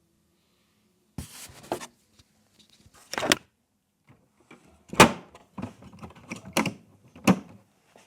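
Handling knocks and clicks from unboxing a jigsaw and its packaging: a brief scraping rustle, then several sharp knocks and clicks, the loudest four spread about a second and a half apart.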